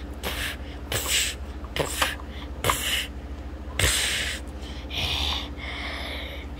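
A run of short breathy hisses and huffs, about eight in all, with a few light clicks of small plastic toy figures being handled, over a steady low hum.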